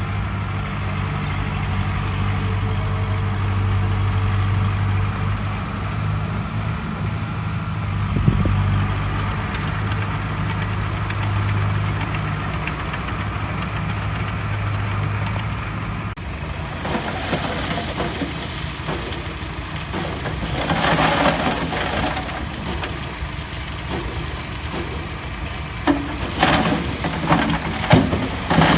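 Heavy diesel earthmoving machinery running steadily with a deep, even engine note. About halfway through the sound changes abruptly to a noisier stretch with bursts of sharp knocks and rattling, loudest about two-thirds in and near the end.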